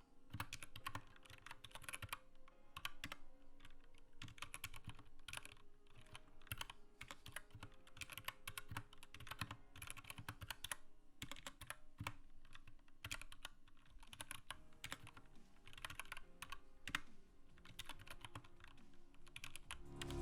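Steady typing on an Anne Pro 2 mechanical keyboard: a continuous run of quick key clicks and clacks, several strokes a second.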